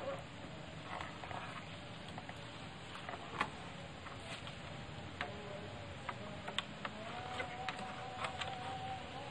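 Light, scattered knocks and clicks of bamboo poles and rubber straps being handled as a bundle of bamboo is strapped onto a motorcycle. A faint steady tone runs underneath from about halfway through.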